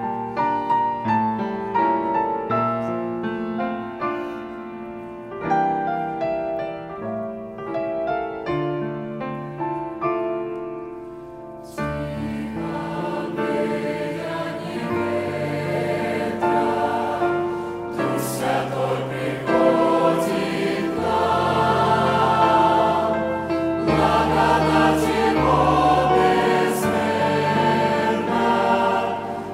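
Church choir singing a Russian-language hymn with instrumental accompaniment. About the first twelve seconds are an instrumental introduction of single decaying notes; then the full choir comes in and the sound grows louder and fuller.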